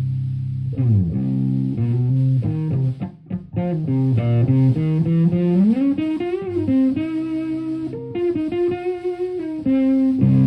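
Stratocaster electric guitar through a Violet Ram's Head Big Muff fuzz pedal, a Marshall Plexi head and a 4x12 cabinet, playing a fuzzy single-note lead. A held low note slides down about a second in, then comes a run of notes with string bends and vibrato, ending on a held low note near the end.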